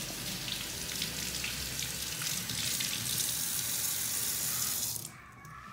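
Kitchen tap running steadily into the sink, shut off about five seconds in.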